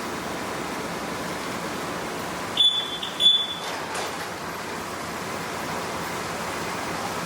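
Two short, high electronic beeps in quick succession, over a steady rushing background noise.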